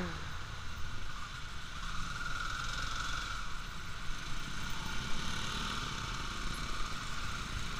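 Motorcycle engine running at low speed through slow traffic, heard on an action camera with a steady wash of road and traffic noise.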